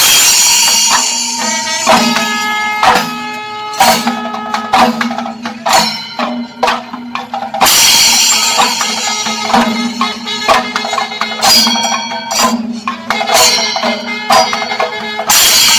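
Singari melam: chenda drums beaten in a fast, dense rhythm with ilathalam hand cymbals ringing over them and a steady low held tone underneath. The cymbals surge in a loud wash at the start and again about eight seconds in.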